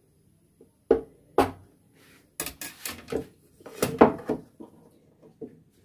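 Metal chips cutter with a serrated edge knocking against the rolling board as it is pressed down through a thin sheet of potato dough, then clattering as it is handled: two single sharp knocks, followed by a run of quicker knocks and clatter.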